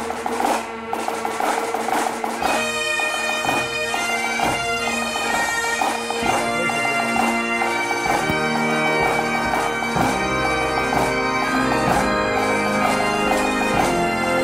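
Bagpipes strike up about two and a half seconds in and play a tune over their steady drones, with drums keeping the beat. Before that, clapping fills the opening seconds.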